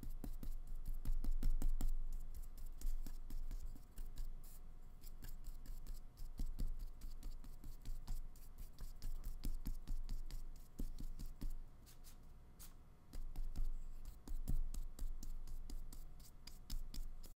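Flat paintbrush dabbing and stroking acrylic paint onto paper: a quick, irregular run of small scratchy taps and brushes of the bristles.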